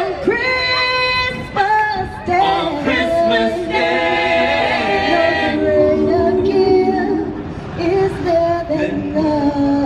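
A cappella vocal group singing through a PA, a woman's voice leading over several other voices that hold sustained chords, with no instruments.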